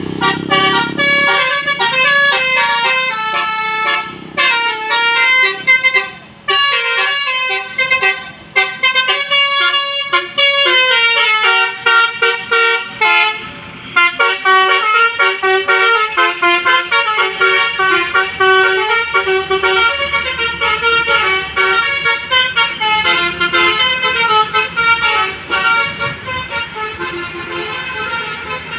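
Basuri musical bus horn playing a fast melody of short stepping notes, with a few brief breaks in the first half.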